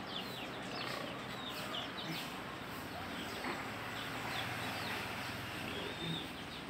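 Birds chirping in many short high calls, repeated throughout, with chickens in the background.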